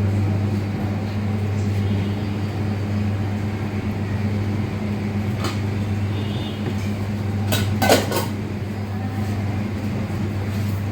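Steady low hum of commercial kitchen equipment, with a few light clicks and a brief clatter of utensils or dishes about eight seconds in.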